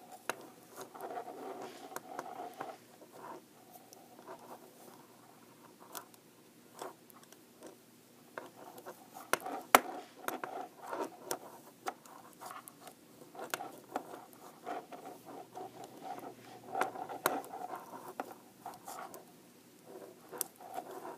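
Size 11 knitting needles clicking against each other and knocking on a tabletop while purling, with the yarn rustling as it is wrapped and pulled through. The clicks come irregularly, the loudest about ten seconds in.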